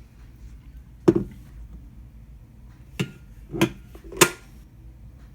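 Four sharp clacks of an Amazon Basics electric kettle being handled, its parts knocking together: one about a second in, then three more in quick succession near the end.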